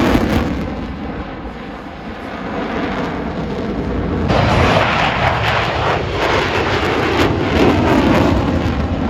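Airplane engine noise from an aircraft flying past: the roar eases off about two seconds in, then builds again and stays loud.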